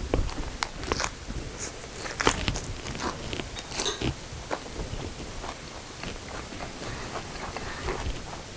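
Biting into and chewing a fresh rice-paper spring roll filled with raw lettuce, carrot and bean sprouts. Crisp crunches come quickly over the first few seconds, then ease into quieter chewing.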